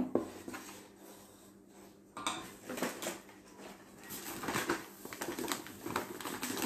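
Rustling of a paper flour bag as flour is poured into a stainless steel mixing bowl of batter, with light clinks of a spoon against the bowl. The handling starts about two seconds in.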